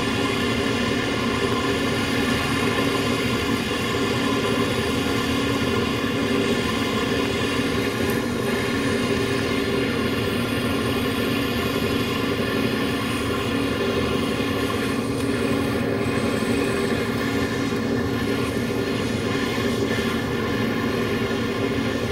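Small keychain butane torch burning steadily: a constant rushing flame noise with a few steady tones running through it, unchanging throughout.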